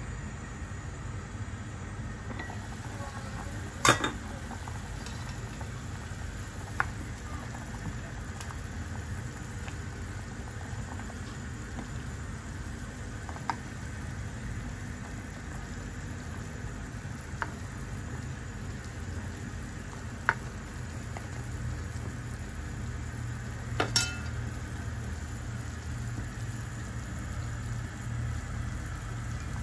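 Soup boiling in a clay pot, a steady low bubbling, with a handful of sharp clinks of the ceramic lid and a ceramic spoon against the pot. The two loudest knocks come a few seconds in and near the end.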